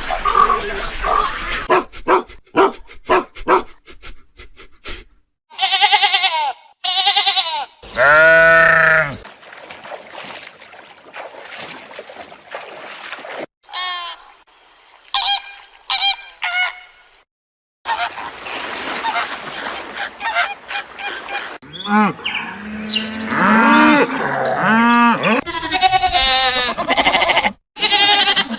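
A string of separate animal calls cut one after another: rapid clicking, short pitched calls, chirps, and near the end a run of repeated pitched calls.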